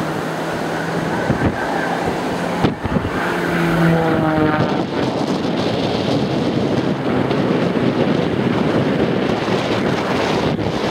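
Extra 300 aerobatic plane's piston engine and propeller droning past, the pitch sliding down about four to five seconds in as it goes by. After that, heavy wind buffeting on the microphone and surf dominate.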